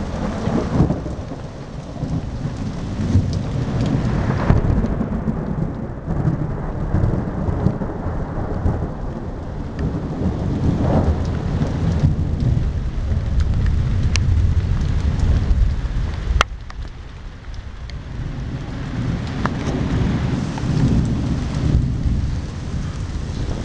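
Summer thunderstorm: heavy rain pouring down while gusting wind churns through the trees, with a deep rumble that swells and eases. A couple of faint sharp clicks come about two-thirds of the way through.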